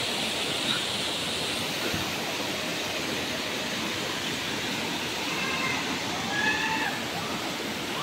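Steady rushing of falling water, an even hiss with no breaks. A few faint short calls come a little past halfway.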